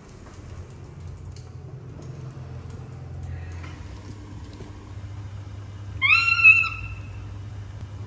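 A young macaque giving one short, high call that rises at the start and then holds, about six seconds in, after a fainter call about three seconds in.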